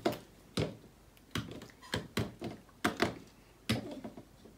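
Anki Cozmo plastic light cubes being shuffled by hand on a marble tabletop: a quick, irregular series of knocks and clacks as the cubes are picked up, set down and slid into new places.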